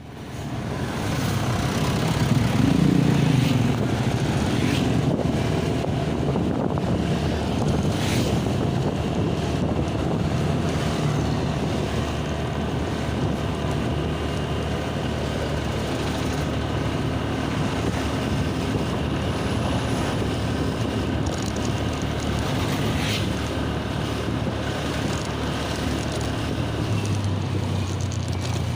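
Road traffic with engines running and vehicles passing, and wind buffeting the microphone; the rumble is loudest about two to four seconds in.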